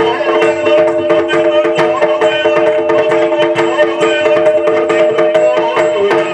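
Yakshagana drum accompaniment for a dance: rapid, dense chande and maddale strokes over a steady held drone.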